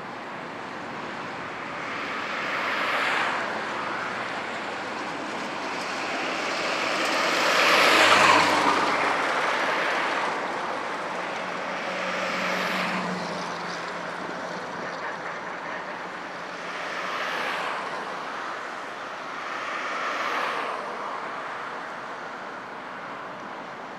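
Jet engines of a Boeing 737 airliner at takeoff thrust as it lifts off and climbs away, a steady rushing roar that swells several times and is loudest about eight seconds in.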